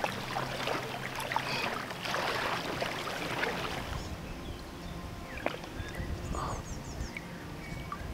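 Water splashing and sloshing, busiest in the first four seconds and then settling to a quieter wash of water.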